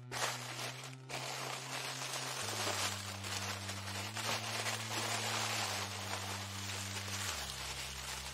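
Scratching and rustling at packaging, a dense crackling hiss, over sustained low background-music notes that change pitch a few times.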